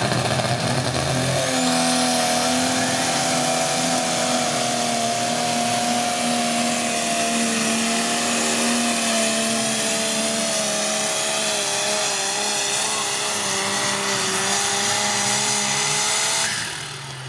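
Pulling vehicle's engine held at full throttle while dragging the weight-transfer sled, its note sagging slowly as the load builds, with a high whine climbing in the first two seconds. The engine drops off about sixteen and a half seconds in as the run ends.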